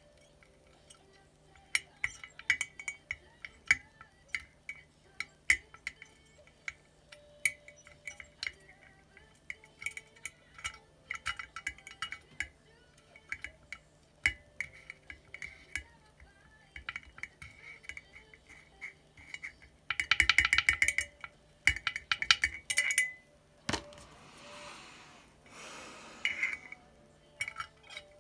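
Plastic model-kit parts and tools clicking and clinking against the inside of a glass bottle, in irregular light taps, with a spell of rapid rattling clicks about two-thirds of the way through.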